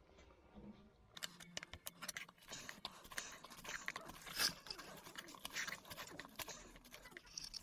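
A tubeless rubber tire on a Segway Ninebot Max G30 scooter being levered and pulled off its rim by hand. From about a second in there is a dense, irregular run of scraping, creaking and clicking of rubber and tools against the metal rim.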